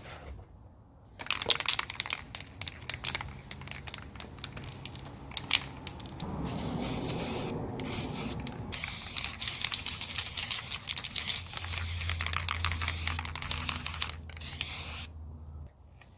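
Aerosol spray paint can hissing, short bursts at first, then long sprays with brief pauses from about six seconds in, stopping shortly before the end.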